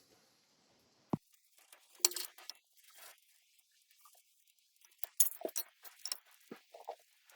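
Small metal parts clinking and knocking as they are handled: a single sharp knock about a second in, then scattered clinks, with a quick run of them after about five seconds.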